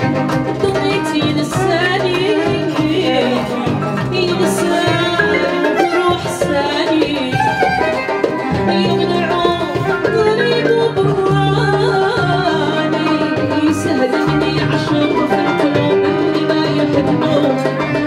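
Live band music with violin and double bass playing a lively tune, a woman singing into a microphone, and a few sharp percussive hits.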